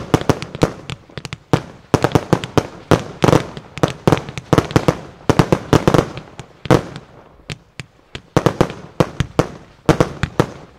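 Professional fireworks display: many sharp bangs in rapid volleys, easing off briefly about seven seconds in, then picking up again.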